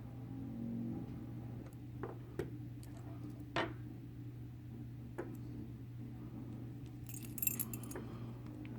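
A few light metallic clicks, then a brief jingle of keys about seven seconds in, as a padlock and its keys are handled, over a steady low hum.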